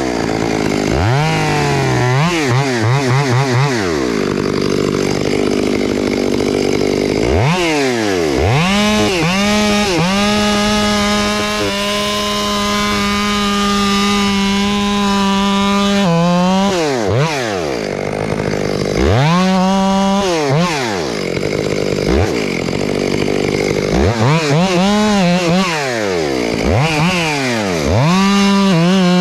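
Chainsaw revving up and down repeatedly while cutting into a tree, with one long stretch held at full throttle for about seven seconds in the middle.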